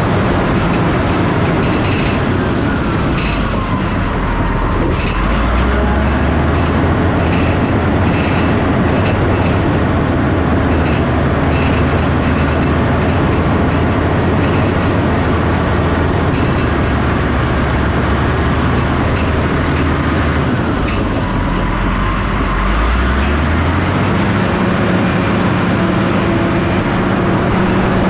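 Earthmoving machine's engine running steadily while pushing off topsoil, its engine note shifting about five seconds in and again a little over twenty seconds in.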